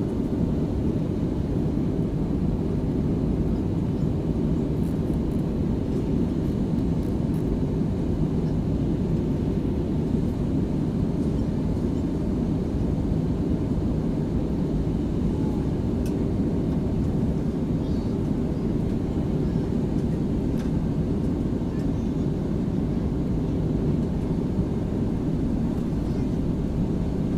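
Steady cabin noise inside an Airbus A320-200 airliner in flight: an even, low rumble of engines and airflow with no change in level.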